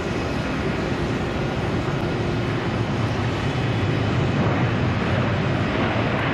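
Twin-engine jet airliner's engine noise during a landing: a steady rush with a faint whine, growing a little louder in the second half.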